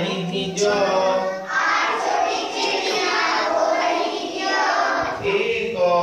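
A group of children singing a rhyme together.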